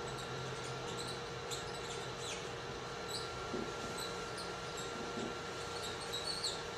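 Room tone: a steady low hiss and electrical hum, with a few faint, short, high ticks scattered through it.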